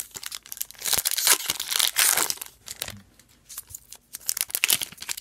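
Foil hockey-card pack wrapper being torn open and crinkled in the hands, a dense crackle that is loudest about a second in and comes again near the end.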